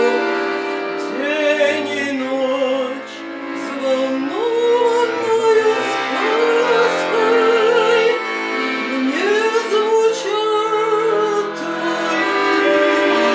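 A woman singing held, wavering notes with vibrato over instrumental accompaniment.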